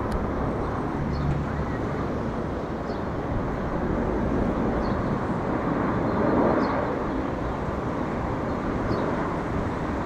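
Boeing 787 airliner on approach passing low overhead with landing gear down: a steady, broad jet rumble that swells slightly about six seconds in.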